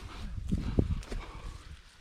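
Footsteps of a hiker on a trail, with irregular low thumps and rumbling; the strongest thump comes a little under a second in.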